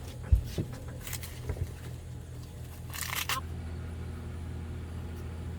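Corn husks being torn and stripped from ears of sweet corn: four short rustling tears, the first with a dull thump, over a steady low hum.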